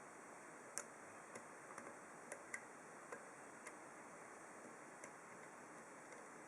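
Faint, irregular small clicks and ticks of a steel pick working the pins of a TESA padlock's half euro cylinder during single pin picking, about a dozen over a few seconds, over a steady low hiss.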